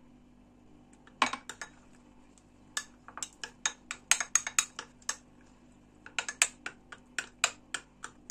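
Metal spoon clinking against a small glass as a flour-and-water paste is stirred in it. There is a single knock about a second in, then quick clinks, several a second, from about three seconds in.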